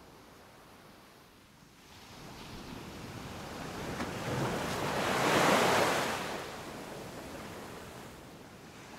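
Sea waves breaking and washing up a pebbly beach: the surf swells over a few seconds, is loudest a little past the middle, then fades back down.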